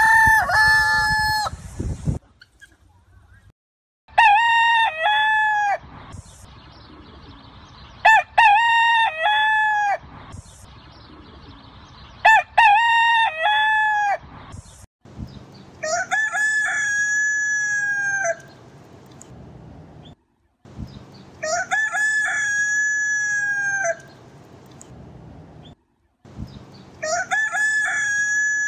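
Village rooster (ayam kampung) crowing again and again: seven full crows, each a drawn-out cock-a-doodle-doo of about two seconds, coming every four to five seconds.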